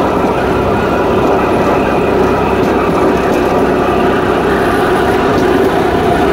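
Steady running noise of a small rail vehicle travelling along a railway track, heard from on board: an unbroken drone of motor and wheels on the rails with a few held tones.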